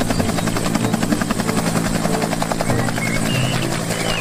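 Bell UH-1 Huey helicopter hovering just off the ground: its two-bladed main rotor beats in a rapid, even chop over a steady engine tone.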